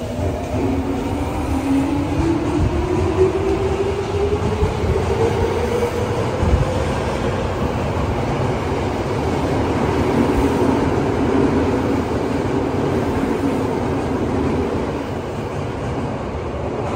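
Tokyo Metro 05 series train with a Toshiba IGBT-VVVF inverter accelerating away from the platform. Its motor whine rises in pitch over the first few seconds and then levels off, over the rumble of wheels on rail.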